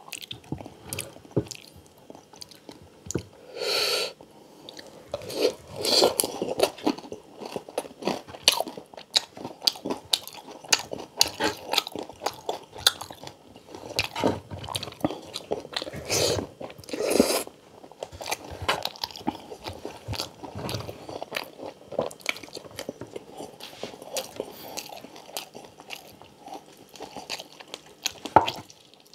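Close-miked chewing and crunching of crispy pata (deep-fried pork knuckle) with rice and pinakbet. It is an irregular run of wet chews and crisp crunches from the fried skin, with louder crunches now and then.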